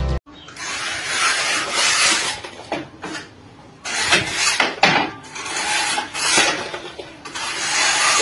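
Rough scraping of a bent-wire tool along the cement render of a pillar, in a series of strokes about a second apart, with a short pause a few seconds in.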